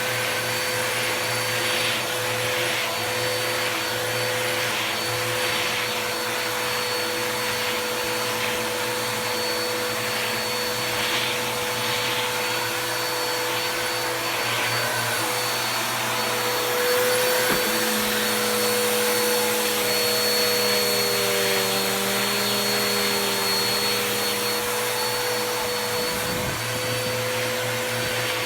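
Bissell vacuum cleaner running with a brush-tool attachment over bed sheets, sucking up hair: a steady motor hum with a high whine and faint brushing swishes. The motor's pitch shifts and wavers for several seconds in the second half as the load on the nozzle changes.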